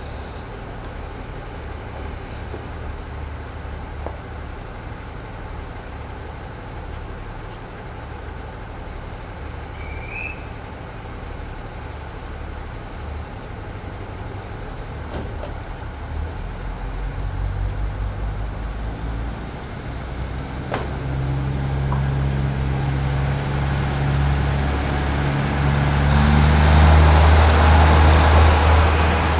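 KiHa 40-series diesel railcar engines: a steady low idle, then from about halfway a second railcar's diesel engine grows louder as it pulls in on the next track, loudest near the end, with a faint high squeal as it arrives.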